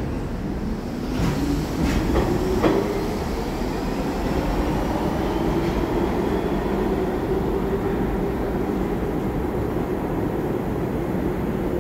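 R62A subway train pulling out and accelerating away. The wheels clack over rail joints in the first few seconds while a motor whine rises in pitch, then a steady rumble continues as the train recedes down the tunnel.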